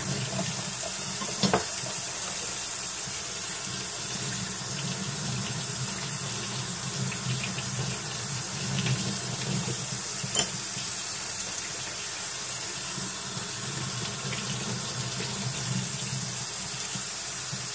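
Water running steadily from a tap into a sink as gun parts are rinsed, with two light clicks, one about a second and a half in and one just past the middle.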